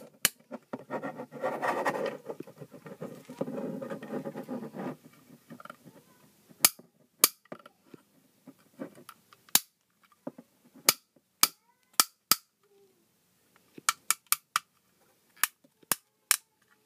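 Plastic ratchet joint in a Warbotron toy figure's foot clicking sharply as it is worked, in single clicks and quick runs of three or four. A louder, rough, noisy stretch fills the first few seconds.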